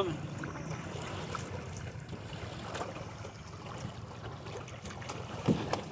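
Small waves lapping and trickling against the side of a small metal boat, with faint splashes as a crab line is drawn up out of the water.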